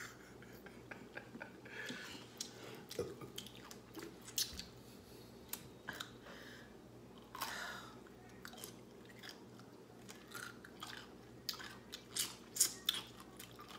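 Pickle slices being bitten and chewed up close: a run of crunches and sharp mouth clicks, busier and louder near the end.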